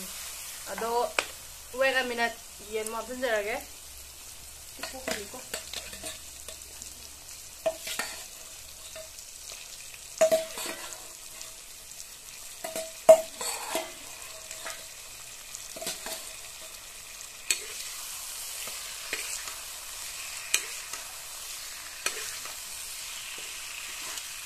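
A metal ladle stirring and scraping chicken, tomato and onion frying in an iron wok, over a steady sizzle. Sharp clanks of the ladle against the wok come every second or few.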